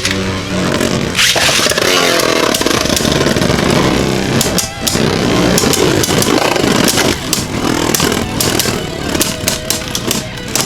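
Two Beyblade Burst spinning tops whirring and scraping against each other in a plastic stadium, with many sharp clicks as they collide, thickest in the middle of the stretch.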